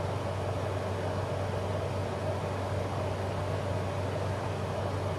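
Steady low mechanical hum with an even hiss, room background noise such as from an air conditioner, holding at one level throughout.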